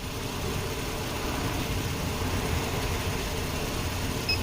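The 2010 Chrysler Sebring's 2.7-litre V6 idling steadily, with a short electronic beep near the end.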